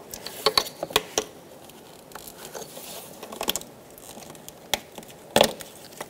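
Gloved hands working a plastic wiring-harness clip loose under the engine's intake duct: scattered small clicks, taps and rustles, with a louder click near the end as the clip comes free.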